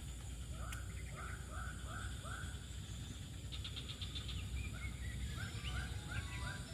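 Birds calling: a row of five repeated notes, about two a second, then a short rapid trill, then a run of short quick notes near the end, over a steady low background rumble.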